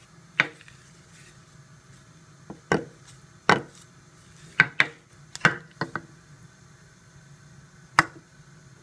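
A spoon knocking and scraping against a baking dish while turning sliced carrots: a series of sharp, irregular knocks, the last a single clear tap near the end.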